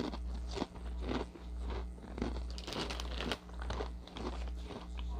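A person biting and chewing Ritz Toasted Chips: a quick, irregular run of crisp crunches.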